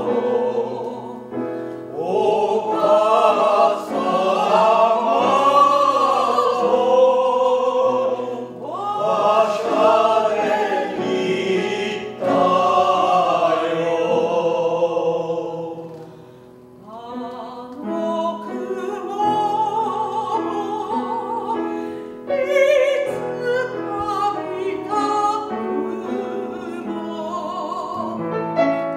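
A small mixed vocal ensemble singing a lyric song in the Italian bel canto style, the voices in parts and in unison, accompanied by an upright piano. The sound dips briefly about sixteen seconds in, and the piano stands out more in the second half.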